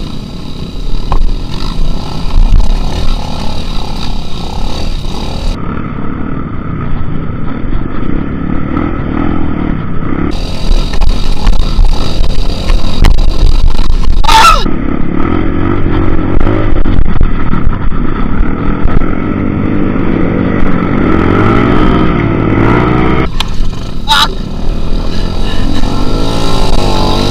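Trail motorcycle engine heard from on board, revving up and down as the bike is ridden through deep mud ruts. Two sharp knocks stand out, one about halfway through and one near the end.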